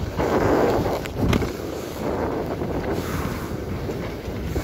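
Wind rushing over the microphone of a camera moving downhill on snow, mixed with the scraping of a ride over packed snow. The noise swells and fades every second or so, with a couple of short scrapes a little over a second in.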